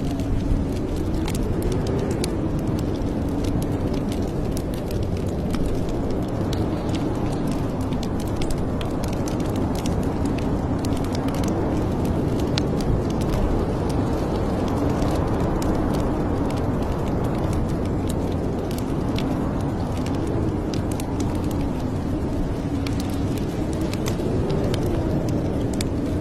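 Wood fire crackling, with scattered pops and clicks over a steady low rumble, and a soft tone that slowly wavers up and down in pitch.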